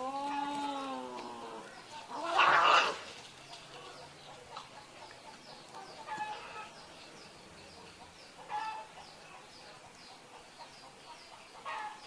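Two domestic cats in a fighting standoff, yowling: a long, slightly falling yowl at the start, then a louder, harsh cry about two and a half seconds in, followed by shorter, quieter yowls every few seconds.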